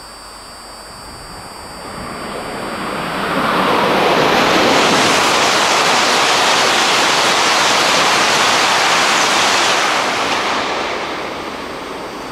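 A coupled E5-series and E6-series Shinkansen passing through the station without stopping: a rush of air and wheel noise that builds, holds loud for about six seconds as the cars go by, then fades away.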